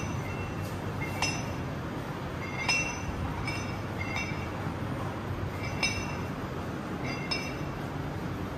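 Metal dumbbell clinking once with each rep of a one-arm dumbbell row, a short ringing clink about every one and a half seconds, over a steady low background rumble.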